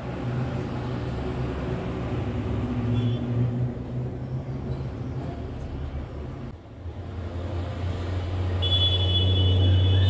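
Low steady mechanical rumble, like a vehicle engine, that changes about two-thirds of the way through and then grows louder. A thin, high squeal joins it near the end.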